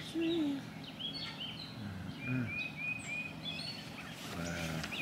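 Birds calling outdoors: many short, high chirps come in irregular runs, with a few lower, deeper calls mixed in over a steady background hiss.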